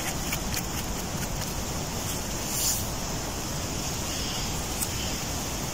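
Steady rushing wind noise, with a few faint clicks and scrapes from a knife trimming a bolete mushroom's stem.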